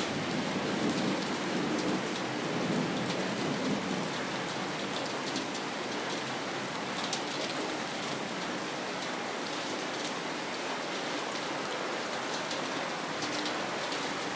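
Steady rain falling, an even hiss with the sharper ticks of individual drops striking a hard surface now and then.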